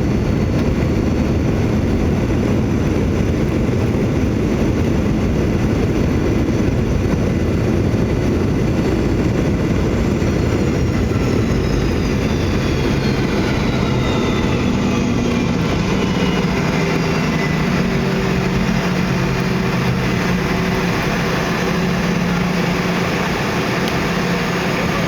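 Loud steady cabin noise of a Boeing 717-200, its rear-mounted Rolls-Royce BR715 turbofans audible as a high whine that falls in pitch about halfway through as the engines spool down, leaving a steady low hum.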